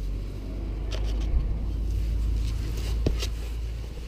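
2010 Yamaha TZR50's 50cc two-stroke single running on choke just after a cold start, with a few sharp clicks about one and three seconds in.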